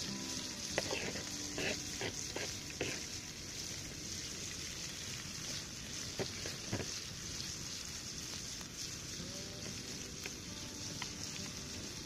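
Bacon, onion and tomato frying in butter in a pan on a burning log candle (Swedish fire torch): a steady sizzle, with a handful of sharp pops in the first three seconds and two more about six seconds in.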